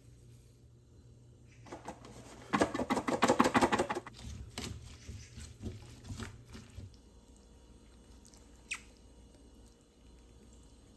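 A wooden spoon stirring and scraping chopped green onion, chilli and seasoning in an aluminium pot: a quick run of clattering knocks, then sparser taps, and one sharp click near the end.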